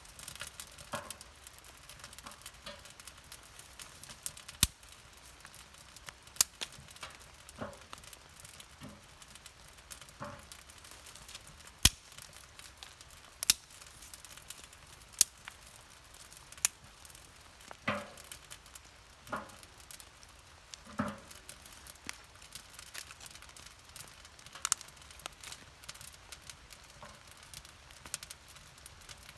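Damp firewood burning in a portable tent stove: sharp crackles and pops every second or two over a faint hiss, with a few duller knocks.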